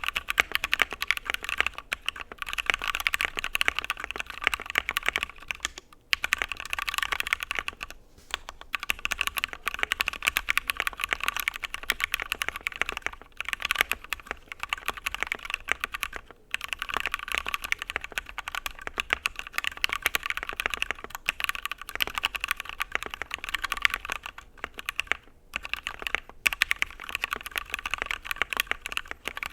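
Steady typing on a custom Shark60 mechanical keyboard with stock JWK switches, a polycarbonate plate, Durock v2 stabilizers and Milk Cover keycaps, broken by a few short pauses.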